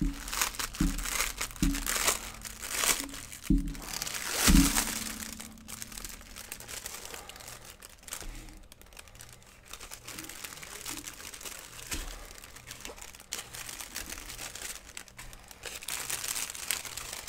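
Plastic packaging crinkling and rustling as bags of diamond painting drills are pulled out and handled, busiest in the first five seconds. A few short thumps come through the rustling, the loudest about four and a half seconds in.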